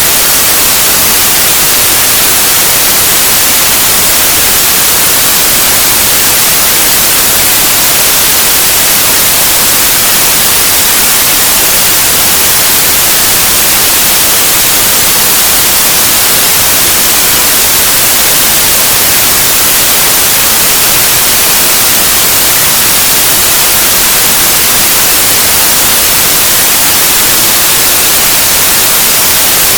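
Loud, steady synthetic white noise: an even, unchanging hiss across all pitches.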